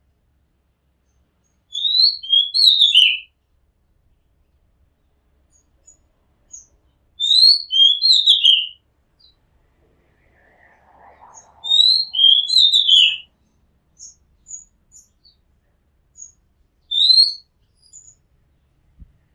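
Oriental magpie robin singing: a short phrase of clear whistled notes, each sliding down in pitch, repeated three times about five seconds apart, with a shorter fragment near the end.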